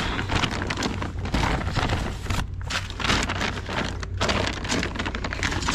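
Plastic wrapping and bags crinkling and rustling as gloved hands rummage through a stuffed tote bag: a dense, uneven run of crackles.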